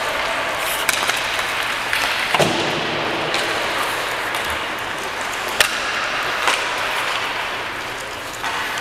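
Ice hockey rink ambience: a steady hiss broken by scattered sharp clacks and knocks of pucks and sticks.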